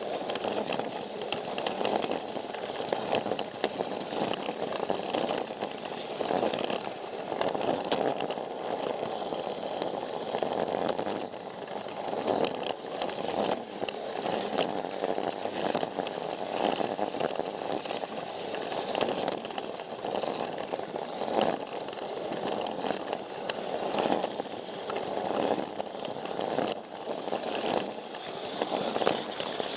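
Battery-powered Plarail toy train's motor and gears whirring steadily as it runs along plastic track, with frequent clicks from the wheels crossing the track joints.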